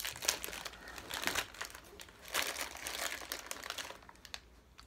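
Crinkling of a bag of Broadway sour cream and onion potato chips as it is handled, in irregular bursts of rustling that die down about four seconds in.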